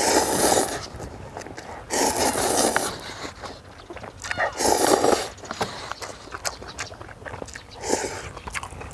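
A person slurping instant ramen noodles in three long slurps in the first five seconds and a shorter one near the end, with small chewing clicks in between.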